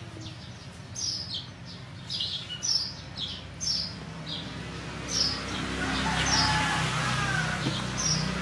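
Small birds chirping: short, high chirps repeating about twice a second, over a low steady hum.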